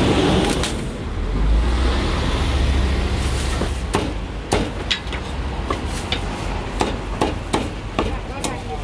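Chinese cleaver chopping roast pork on a thick wooden chopping block: sharp chops start about three and a half seconds in and come about two or three a second.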